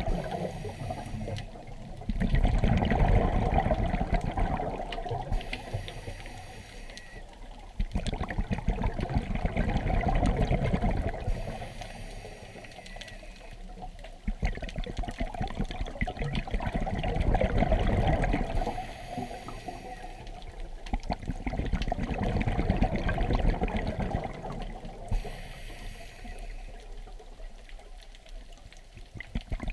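Scuba diver breathing through a regulator underwater: a short hiss on each inhale, then a few seconds of bubbling on each exhale, repeating about every six seconds.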